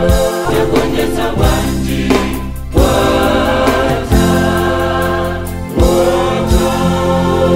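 Mixed men's and women's gospel choir singing in harmony, holding sustained chords, with new phrases coming in on sudden swells about three, four and six seconds in.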